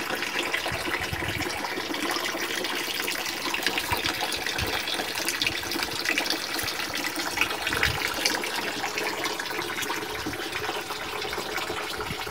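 Water running steadily from a tap, filling for laundry.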